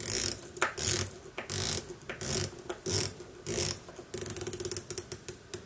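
Doxa Sub 300T's 120-click unidirectional dive bezel being turned by hand and ratcheting: about six short runs of rapid clicks, one every half second or so, then a quick string of separate clicks from about four seconds in.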